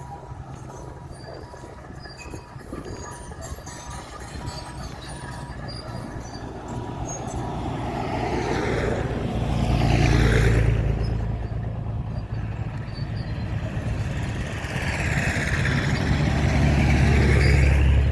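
Komatsu D61 bulldozer's diesel engine working under load while breaking up and pushing the old bituminous road surface. It swells louder twice, around ten seconds in and again near the end, each time with a rush of scraping, grinding noise. A faint intermittent beep sounds in the first few seconds.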